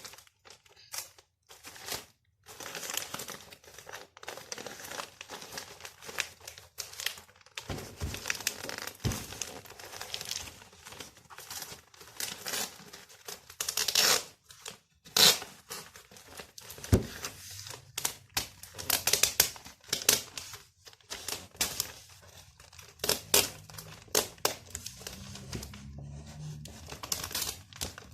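Gift wrapping being torn and crumpled by hand as a present is unwrapped, a long run of irregular paper rips and crinkles.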